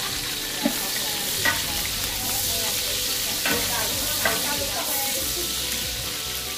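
Lemongrass, shallots and chillies sizzling as they fry at the bottom of a large aluminium stockpot, the first stage of a seafood hotpot broth, stirred with a metal ladle that knocks against the pot four times.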